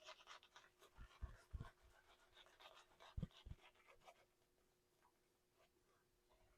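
Faint swishing and crackling of a wet shaving brush working shave soap lather on the face, with a few soft low knocks, dying away to near silence about four seconds in.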